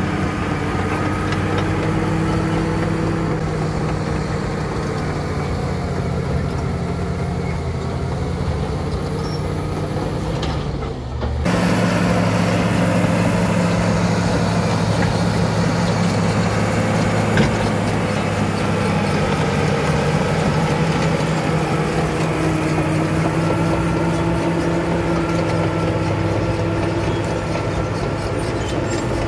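Caterpillar crawler bulldozer's diesel engine running steadily under load as it works and tracks over dirt, with a fine clatter from the steel tracks. The sound drops out briefly about eleven seconds in, then comes back slightly louder.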